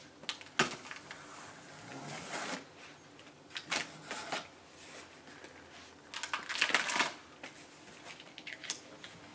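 Utility knife slicing through the packing tape on a cardboard box, with scraping of the blade and taps and rustles of hands on the cardboard. It gets louder and busier about two-thirds of the way through.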